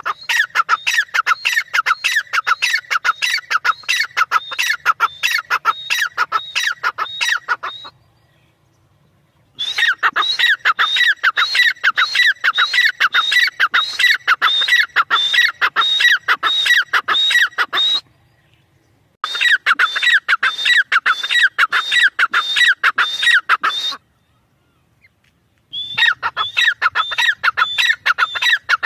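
Francolin (teetar) calling: rapid, loud runs of repeated sharp notes, in four long bouts that each stop abruptly, with short pauses between them.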